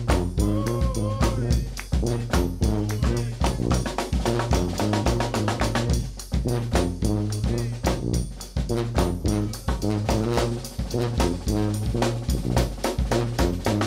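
New Orleans brass band playing live: bass drum and snare keep a steady driving beat under a sousaphone bass line, with trombone and other horns.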